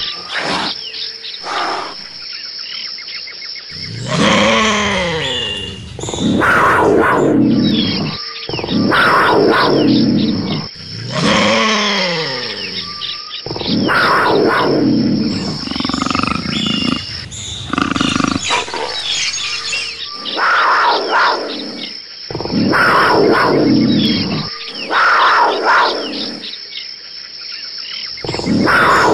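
Big-cat roars and growls from a wildlife soundtrack, one about every two to three seconds, several falling in pitch, over high bird chirps of a jungle ambience.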